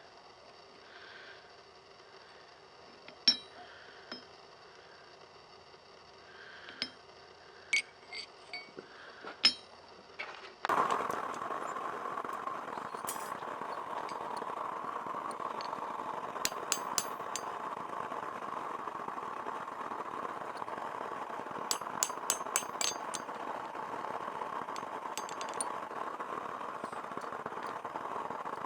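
Scattered light metal clinks of tools being handled. About ten seconds in, a steady rushing roar starts abruptly and keeps going, typical of a forge's burner or blower, with more quick clinks over it.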